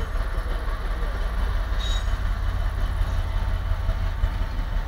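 Train rumbling on the tracks: a steady deep rumble with a rushing noise over it. A brief high squeak comes about two seconds in.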